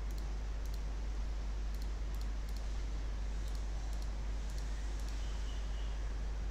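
Computer mouse clicking, a series of short sharp clicks roughly every half second as items are picked one by one, over a steady low electrical hum.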